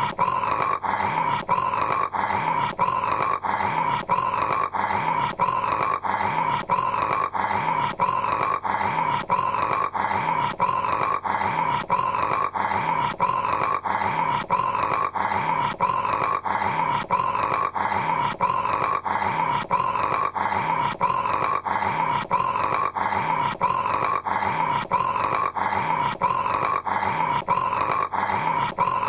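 A man's snoring, a rasping sound that repeats at an even, fast rhythm of about two a second without a break.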